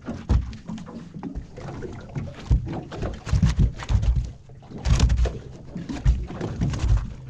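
Irregular knocks and thumps with rustling between them: handling noise, probably fishing gear or a hand moving against a boat or kayak hull.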